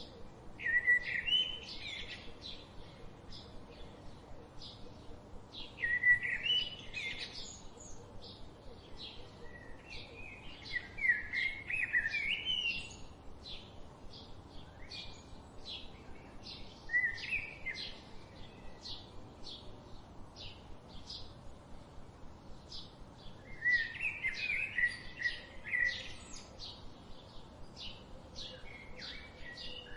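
Birds singing: short high chirps repeated about twice a second throughout, with louder warbling song phrases breaking in five times.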